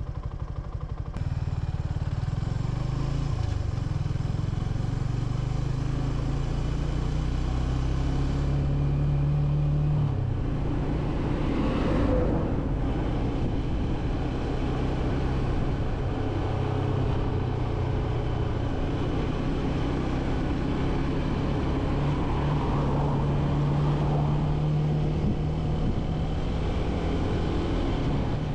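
Motorcycle engine running in fourth gear on a downhill with the throttle eased off, engine braking. There is steady wind noise over it, and it gets louder about a second in.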